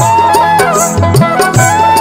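Instrumental passage of a Bhawaiya folk song: a held melody line that steps and bends in pitch, over a steady drum beat with deep, pitch-bending strokes and regular high jingling hits.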